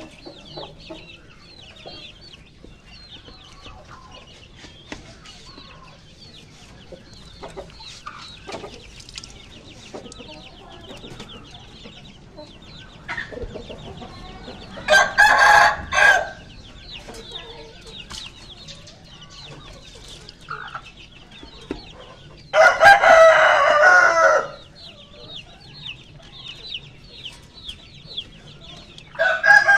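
A rooster crowing three times: once about halfway through, again a few seconds later in a longer, harsher crow, and once more right at the end. Between the crows a faint, rapid high chirring runs steadily in the background.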